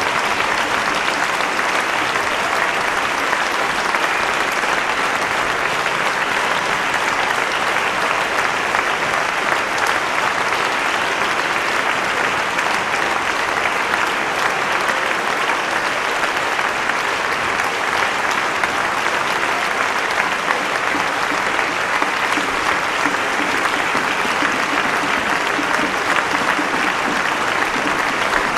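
Audience in a concert hall applauding steadily, without a break.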